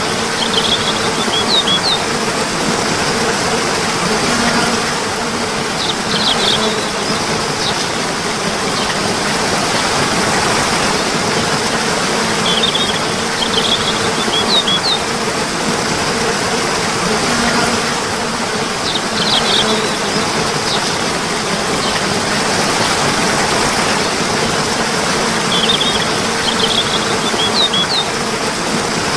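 Running water with a steady rush, and a short burst of high bird chirps that comes back about every six and a half seconds, five times.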